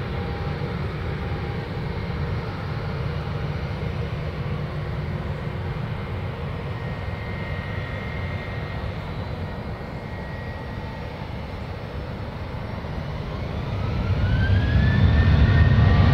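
Boeing 737-800's CFM56-7B jet engines running steadily with a low rumble and faint whine as the airliner sits on the runway. In the last few seconds a whine rises in pitch and the rumble swells as the engines spool up for the takeoff roll.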